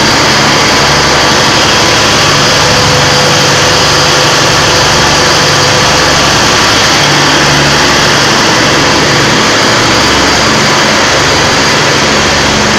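A combustion engine running steadily and loudly close by, with a low, slightly wavering drone and hiss that hold at an even level without revving.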